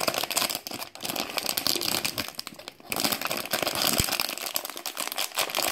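Foil blind-box bag crinkling as hands crumple and work it open, steady crackly rustling with two short lulls, about a second in and near the three-second mark.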